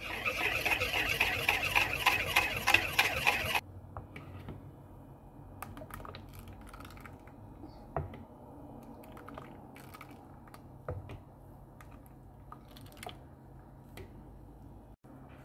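Wire whisk beating runny crepe batter in a plastic mixing bowl: a fast, dense rattle of the wires against the bowl that stops suddenly about three and a half seconds in. After that, a metal spoon stirring the batter gives scattered soft clicks and taps against the bowl, over a low steady hum.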